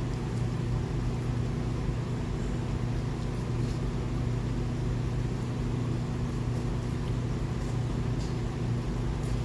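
A steady low mechanical hum with a constant even drone, and a few faint scattered ticks over it.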